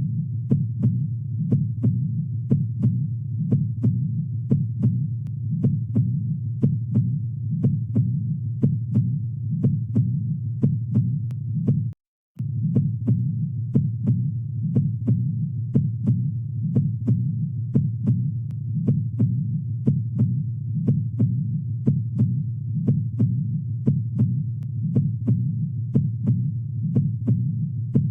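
Heart sounds at 60 beats per minute, a regular lub-dub over a steady low hum. Each lub is S1, the mitral valve closing at the start of systole; each dub is S2, the aortic valve closing at the start of diastole. The sound cuts out for a moment about twelve seconds in.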